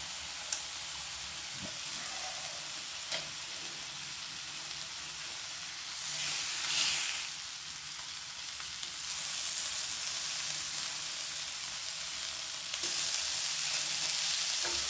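Marinated beef steak with sliced onions and peppers sizzling on a Korean barbecue grill pan, with a couple of sharp clicks of chopsticks against the pan. The sizzle swells briefly about six seconds in and grows louder near the end.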